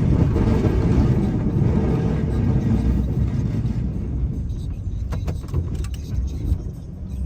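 Snow-plowing vehicle's engine running with a steady low rumble, louder and noisier for the first few seconds and then easing off. A few sharp clicks sound about five seconds in.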